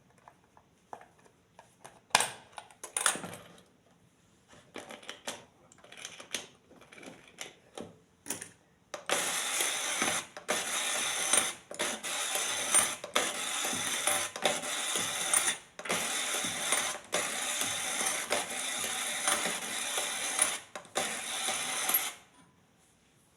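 Hands handling a plastic toy and its packaging: scattered clicks and taps, then a long stretch of dense scratchy rattling with a few short breaks that stops abruptly near the end.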